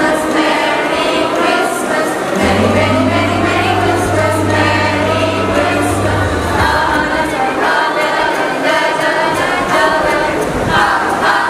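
School choir of girls and boys singing together into stage microphones. A low steady note is held underneath from about two to six seconds in.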